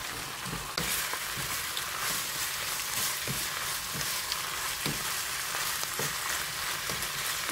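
Ham and vegetables sizzling in oil in a wok-style frying pan while being turned with a wooden spatula, with a few light knocks and scrapes of the spatula against the pan. The sizzle gets a little louder about a second in.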